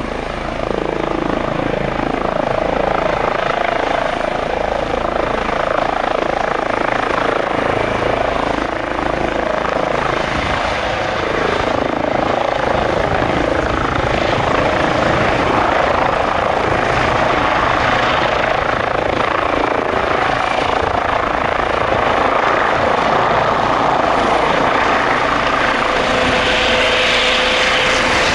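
Eurocopter EC135T2+ helicopter lifting off and hovering low, its twin turbine engines, main rotor and Fenestron shrouded tail rotor running. The sound grows louder about a second in and stays loud, with a steady whine added near the end.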